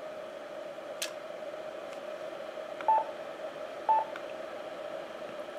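Two short electronic beeps about a second apart from a Yaesu FT-857 transceiver as its front-panel buttons are pressed, over a steady faint tone, with one sharp click about a second in.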